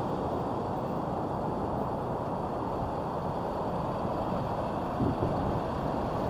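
Steady wind on the microphone and beach surf, with a four-wheel-drive SUV driving slowly across the sand toward the microphone.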